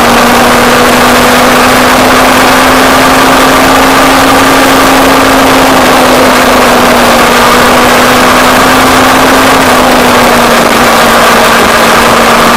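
Motorcycle engine running at a steady cruise under the rush of wind and road noise; the engine note climbs a little, then drops back slightly near the end.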